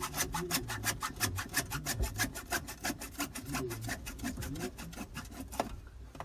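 Hacksaw cutting through 1.5-inch PVC pipe with quick, even back-and-forth strokes, about seven a second. The sawing stops shortly before the end.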